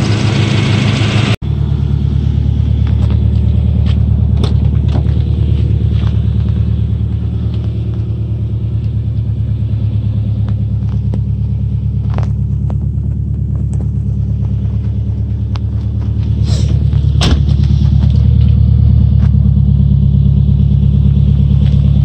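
Subaru EJ205 turbocharged flat-four running at a steady idle, its rod bearings freshly replaced, with a few sharp knocks from handling, the loudest about three-quarters of the way through.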